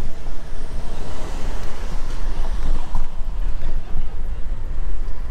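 Wind buffeting the microphone of a camera riding along on a moving bicycle: a loud, fluttering low rumble, with a broader hiss swelling about a second in and fading again by three seconds.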